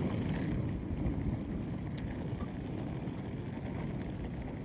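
Steady low rumble of outdoor background noise, with a faint click about two seconds in.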